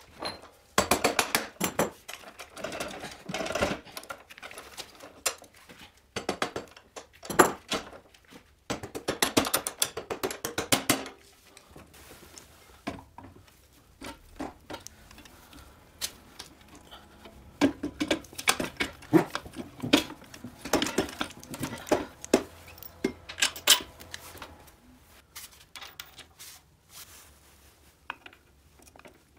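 Hand tools and metal parts clicking and clinking during motorcycle reassembly: runs of rapid ratchet clicks as the rear axle nut is tightened, then, from about halfway, scattered metal knocks and scrapes as the engine and its side cover are fitted to the frame.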